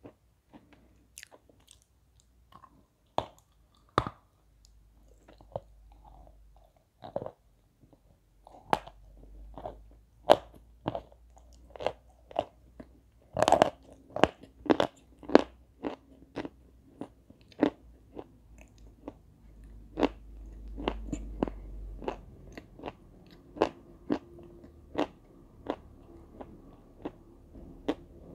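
Chunks of 'beze' chalk coated in wet red clay being bitten and chewed: sharp, crisp crunches every half-second to second, coming thickest about halfway through.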